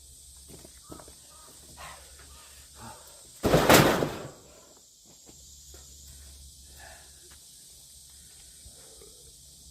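A single loud crash of an axe splitting a firewood log, about three and a half seconds in, lasting about half a second.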